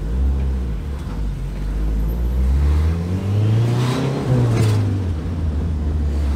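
Mitsubishi Lancer Evolution III's turbocharged 4G63 four-cylinder, heard from inside the cabin on the move. The engine note climbs from about two seconds in, peaks near four seconds, then drops back as the car eases off.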